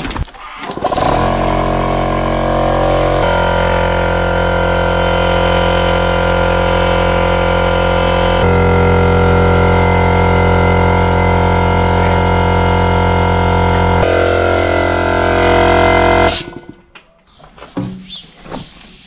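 Small portable electric air compressor starting up and running steadily while it inflates a tractor tyre, its pitch stepping a few times as the load changes. It cuts off abruptly near the end.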